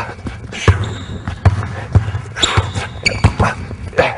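Basketball dribbled hard and low on a hardwood court in a between-the-legs stutter (freeze) dribble: a quick, uneven run of sharp bounces, with a few short high squeaks mixed in.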